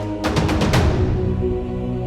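Orchestral background music: a dramatic cinematic track over sustained chords, with a quick roll of about five percussion hits near the start.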